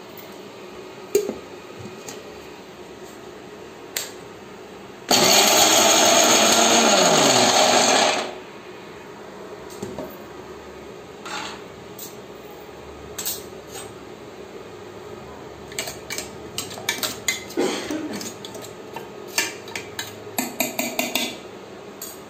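Electric mixer grinder running in one short burst of about three seconds, grinding green chillies and peanuts in its steel jar, then stopping abruptly. Light clicks and knocks come before and after the burst.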